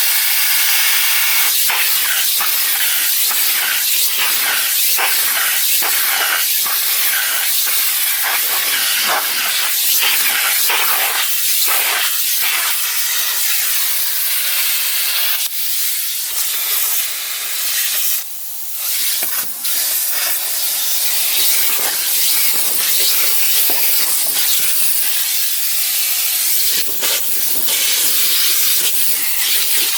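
Electrolux Ergospace canister vacuum cleaner running, a loud, steady rushing hiss of suction. Its note wavers again and again as the nozzle is worked around, and it dips briefly a little past halfway.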